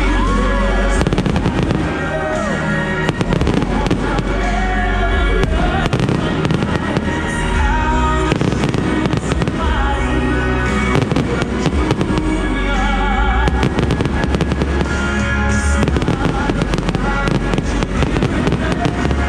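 Fireworks firing continuously, a dense run of sharp cracks and pops from ground fountains and bursting aerial shells. Loud music with a steady bass plays underneath.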